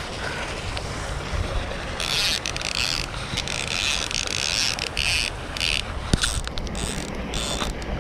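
Baitcasting fishing reel working under load while fighting a Chao Phraya catfish: a mechanical ratcheting whir from the reel's gears and drag. It comes in several bursts starting about two seconds in.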